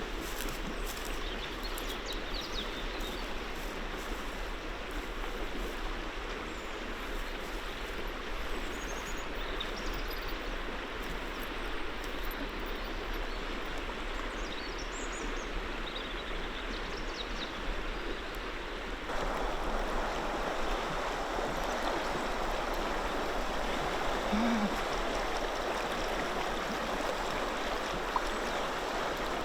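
River water rushing steadily; about two-thirds of the way through it becomes louder and fuller.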